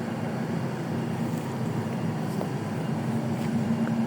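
A steady low hum from the sound-system rig, with one steady tone growing a little louder near the end.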